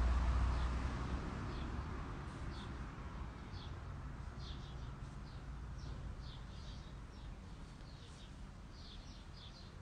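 Small birds chirping in short, high calls repeated all through, over a low rumble that fades over the first few seconds.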